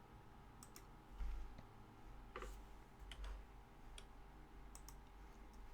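Near silence: faint room tone with a handful of light, scattered clicks and two soft low thumps.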